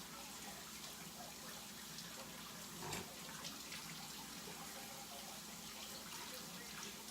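Tap running faintly into a sink as hands are washed under it, with small splashes. There is a brief knock about three seconds in.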